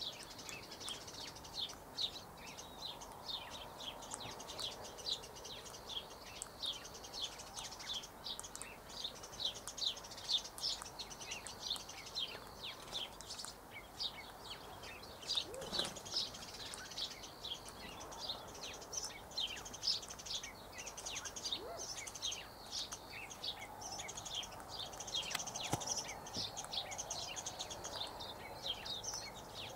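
Birds chirping: a steady stream of short, high chirps, several a second.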